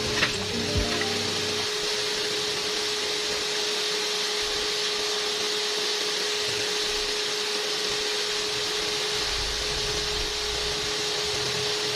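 Breaded chicken pieces deep-frying in a pan of oil: a steady sizzle, over a steady hum.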